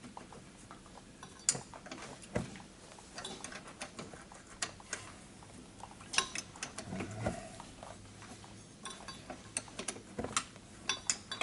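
Irregular metallic clicks and clinks of a hand wrench and tools working on the car's suspension bolts, a few sharper knocks among them.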